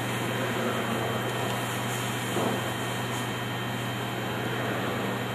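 Steady low hum with a constant fan-like hiss, and a faint soft knock about two and a half seconds in.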